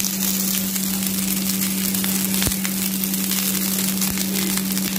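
Cooked rice and fried vegetables sizzling in hot oil in a kadai, a steady hiss, over a steady low hum; a single sharp knock about halfway through.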